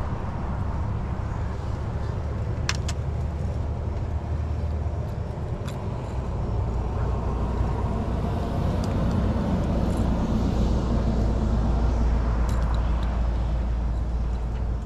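A steady low rumble, a little stronger after about six seconds, with a few light clicks.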